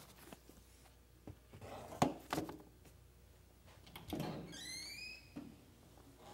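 A wooden interior door being opened by its metal knob: several clicks and knocks from the knob and latch, the loudest about two seconds in. A short squeak rising in pitch follows about four and a half seconds in as the door swings.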